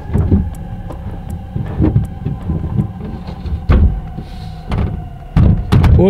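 Irregular thumps and knocks on the body of a pickup truck, heard from inside its covered bed, about one a second, with steady droning tones underneath.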